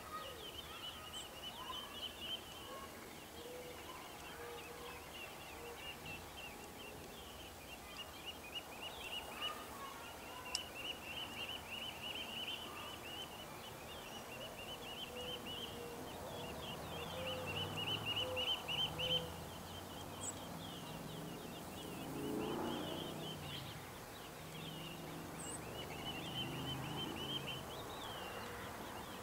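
Gambel's quail chicks peeping in a steady high, rapid chatter, busiest a little past the middle, with a few soft lower call notes in the first half.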